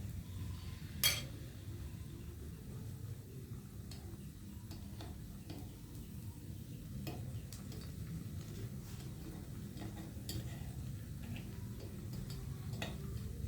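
Kitchen utensil clicking and scraping against a pan or bowl while soybean peyek is being made, with one sharp clack about a second in, over a low steady hum.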